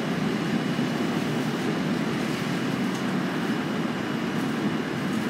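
Steady low rumbling background noise that holds at one level throughout, with only a few faint clicks and no distinct event standing out.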